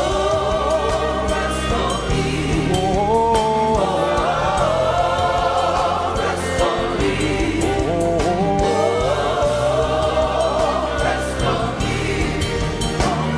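Choir and congregation singing a slow gospel worship chorus over instrumental backing, voices holding and sliding between notes with no clear words.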